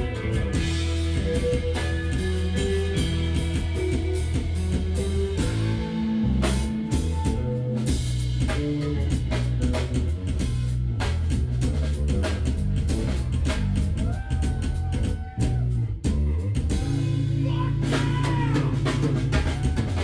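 Live rock band playing loud electric guitars over a drum kit, with a couple of brief stops about fifteen seconds in.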